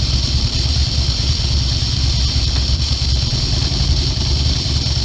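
Motorcycle engine running steadily with a low, even throb, under a steady high hiss.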